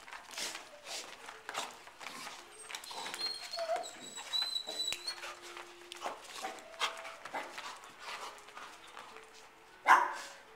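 Two dogs play-wrestling: a busy run of scuffles and paw clicks, with short whimpers mixed in. There is one sudden loud sound near the end.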